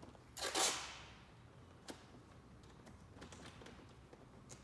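Masking tape pulled off the roll in one short rip about half a second in, followed by a faint click and a few light ticks.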